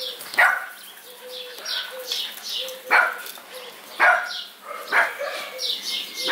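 Dogs barking, four sharp, loud barks at uneven intervals, with a run of short, high, falling chirps going on all through.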